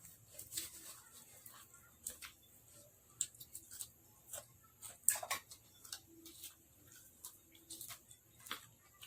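Irregular light clicks and knocks, about one a second, of a pestle working seafood papaya salad in a mortar.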